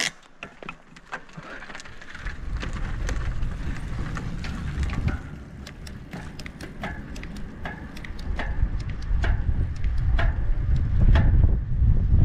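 A handbike rolling off and gathering speed downhill: low tyre and wind rumble on the action-camera microphone builds up from about two seconds in and keeps getting louder. A sharp click at the start and scattered light clicks and ticks run through it.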